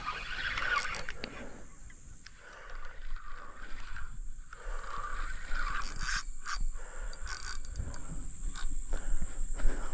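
Fishing reel being wound in stop-start spells, its gears giving a clicking, rubbing rasp, over a steady high-pitched hum.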